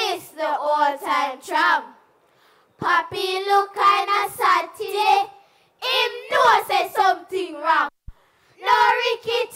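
A group of children chanting a Jamaican Patois poem in chorus, in a sing-song voice, in short phrases with brief pauses between them.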